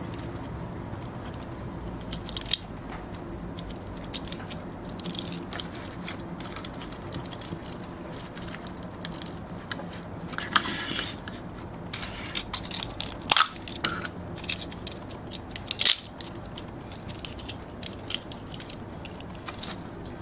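Hard plastic parts of a Hikarian Ukkari transforming toy clicking and snapping as it is folded by hand from train into robot form. Scattered light clicks, with a few sharper snaps, the loudest about 13 and 16 seconds in.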